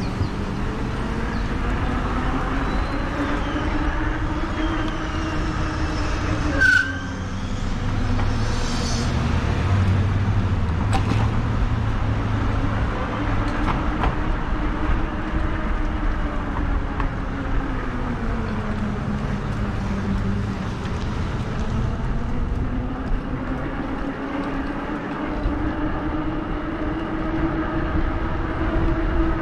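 Modded Lectric XP e-bike's electric motor whining under way, its pitch slowly rising and falling as the speed changes, over a low rumble of wind and tyres. A sharp click about seven seconds in.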